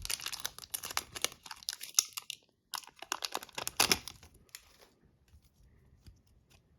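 Foil wrapper of a trading-card pack being torn open and crinkled in two spells of dense crackling, then a few faint clicks.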